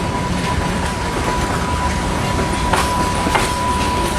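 Passenger train rolling through the station, a steady rumble of the coaches with wheels clacking over rail joints, two sharp clacks a little over half a second apart near the end. A thin steady high tone runs underneath.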